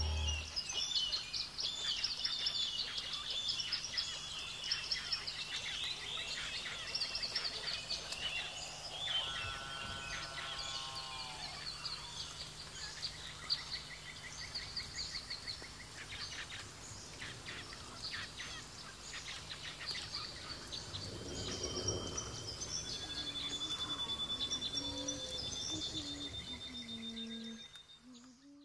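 Outdoor forest ambience with many birds chirping and calling, one giving a longer drawn-out call about ten seconds in. In the last few seconds a steady high whistle-like tone runs on before the sound fades out.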